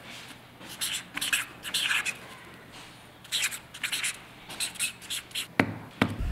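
Blue marker pen writing on grid notebook paper in a series of short, scratchy strokes, then a sharp click near the end.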